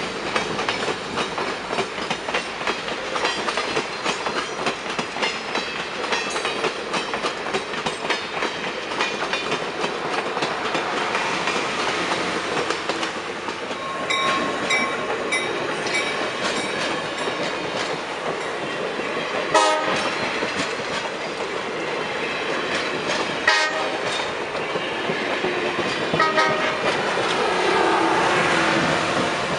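Train rolling by with steady wheel clatter over the rail joints, with short horn sounds near the start and again about halfway through. Two sharp clanks come about two-thirds of the way in, and the sound swells near the end, then fades.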